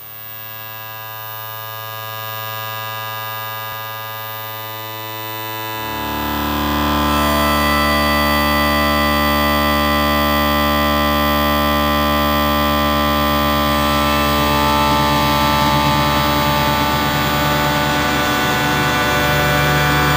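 Steady droning background music of many sustained tones, swelling about six seconds in and then holding level.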